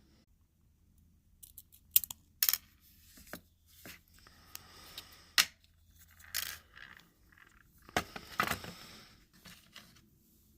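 Sharp clicks, ticks and scrapes of small metal and plastic parts as an empty Bic lighter is pried apart. There are a few loud clicks, the loudest about two seconds in and another past five seconds, and a longer rough scrape near the end.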